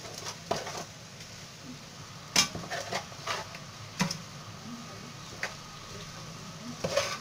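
A metal spoon stirring chopped offal meat in an aluminium frying pan, knocking and scraping against the pan in a series of sharp clinks, the loudest about two and four seconds in. A steady low sizzle of the meat frying runs underneath.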